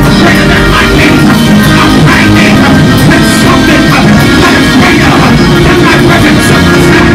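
Loud church band music with drum kit and guitar, held tones under steady percussion.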